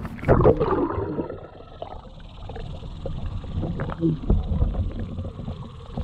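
Muffled underwater sound from a GoPro submerged in its housing: a burst of gurgling in the first second, then a low rumble with scattered knocks and ticks.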